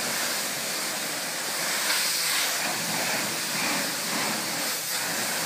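High-pressure car-wash wand spraying water against the side of a bus: a steady hissing rush of the jet hitting the bodywork.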